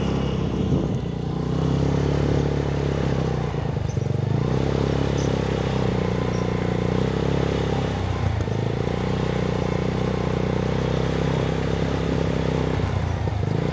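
Small motorcycle engine running steadily while riding along, its note dipping briefly a few times.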